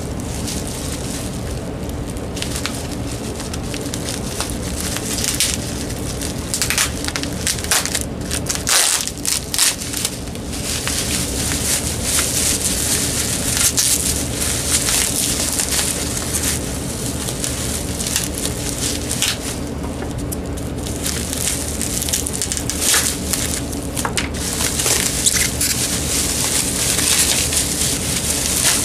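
Plastic bubble wrap crinkling and crackling as it is pulled apart and unwrapped by hand, with many small irregular crackles.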